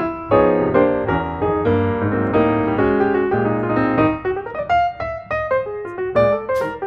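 Background piano music, notes struck at a steady pace, thinning to sparser, higher notes about four seconds in.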